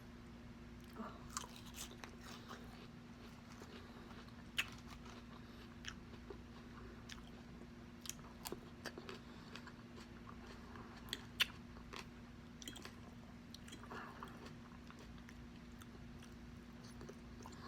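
A person eating close to the microphone: faint chewing with scattered sharp, crisp mouth clicks and crunches, over a faint steady low hum.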